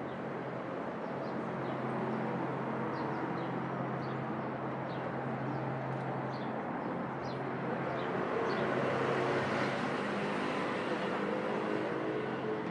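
City street traffic noise: a steady mix of engines humming and passing cars, with a string of short high chirps a few seconds in.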